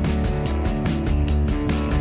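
Background music with a steady beat, about four drum strokes a second over sustained bass notes.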